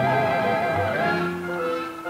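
Orchestral background music from the film's score, with held notes that shift in pitch and grow a little softer near the end.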